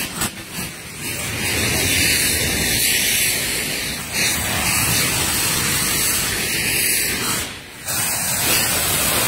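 Saites, hand-held cardboard rockets packed with gunpowder, burning with a loud rushing hiss as they spew fire and sparks. The hiss dips briefly about three-quarters of the way through, then another burst carries on.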